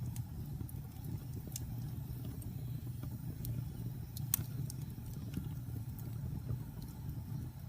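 Wood fire burning in a fireplace: a steady low rumble with scattered crackles and pops, one sharper pop about four seconds in.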